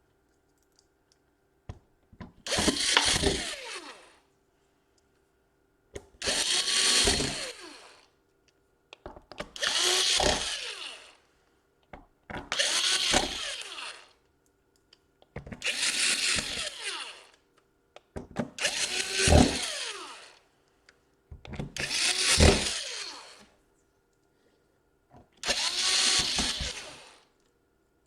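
Electric screwdriver driving the laptop's bottom-cover screws home: eight short runs of the motor, about three seconds apart.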